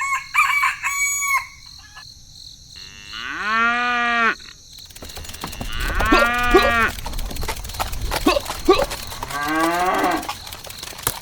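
Cattle mooing: three long calls a few seconds apart, with a few short clucking calls like a hen's at the start and a steady high whine underneath.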